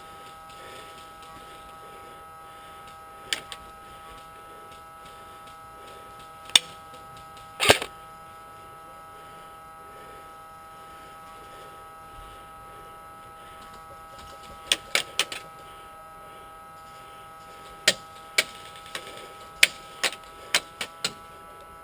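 Sharp cracks of airsoft guns firing, first a few single shots, then quick strings of shots in the last third, over a steady high whine.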